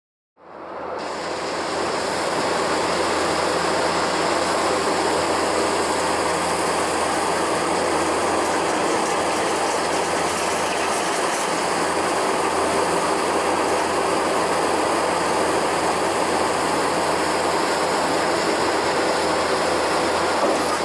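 Doosan DX380LC crawler excavator's diesel engine working beside a running Terex Finlay J-1170 jaw crusher: a steady, dense mechanical din that fades in over the first second or so.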